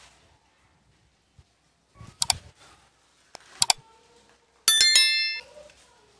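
Subscribe-button animation sound effects: two mouse clicks about a second and a half apart, then a bright bell ding, the loudest sound, ringing for under a second.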